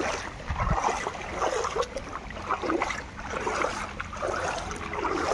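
Muddy floodwater sloshing and splashing in irregular surges, with a few sharp little splashes.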